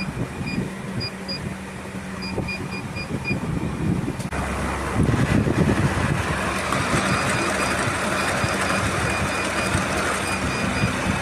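Cash counting machine giving a series of short electronic beeps, in small groups at first. About four seconds in, its mechanism starts running with a steady mechanical whir, and evenly spaced beeps carry on over it.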